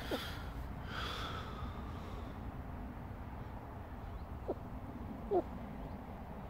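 Yorkshire terrier with its nose in a rat hole, snuffling at it, with three brief falling whines or squeaks, the loudest near the end, over a steady low outdoor rumble.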